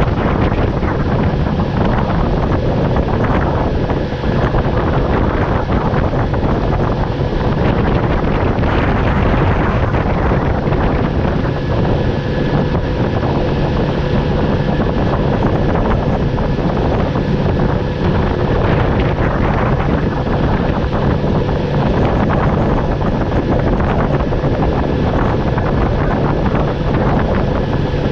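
Wind buffeting the microphone on a moving boat, over the steady running of a Mercury 60 hp outboard motor during its break-in run.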